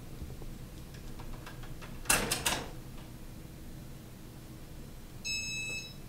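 Many ceiling fans running together: a steady motor hum with faint ticks, a quick cluster of three sharp clicks about two seconds in, and a short high-pitched electronic tone near the end.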